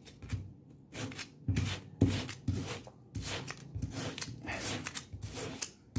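Flat metal blade rubbed repeatedly across a foil yogurt-cup lid lying on a table, pressing it flat: a series of short scraping strokes, about two a second.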